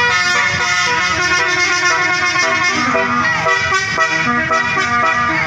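Tour bus telolet horn, a multi-trumpet air horn, playing a tune: a run of loud horn notes that change pitch every fraction of a second.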